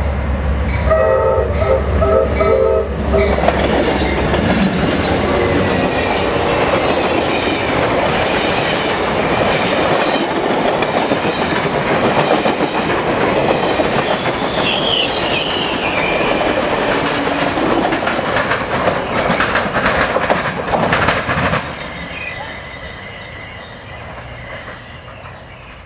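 Amtrak passenger train led by P42DC diesel locomotives sounding its horn in a few short blasts over a low engine rumble, then rushing past with the wheels clacking rapidly over the rail joints and a brief high wheel squeal partway through. The noise drops suddenly a few seconds before the end and fades as the train moves away.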